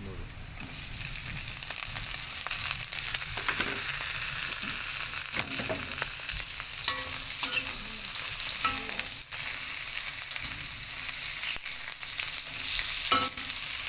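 Sliced oyster mushrooms frying in hot oil in a small wok: a steady sizzle that swells about half a second in as they go into the pan. Through it come repeated scrapes and clicks of the utensil against the wok as they are stirred.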